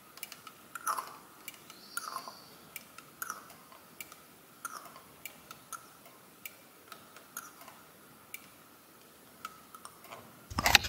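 Hand vacuum pump being squeezed on an EGR valve, ticking about twice a second as the handle is worked. Near the end comes one louder click: the EGR valve's plunger moving under the vacuum, which shows the valve is working.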